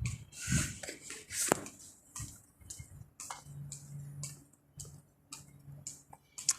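Irregular light clicking taps, roughly two a second, like footsteps while walking, with low thumps in the first second and a faint steady hum in the middle.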